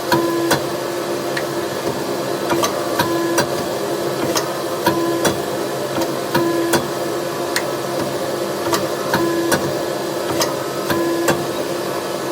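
Hammer blows on hot 5160 steel bar being forged, struck at an irregular pace of about one a second, over a steady mechanical hum.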